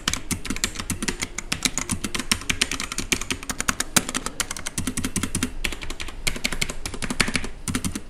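Rapid, continuous typing on a mechanical keyboard with brown switches, which are tactile but not clicky: a steady clatter of keystrokes.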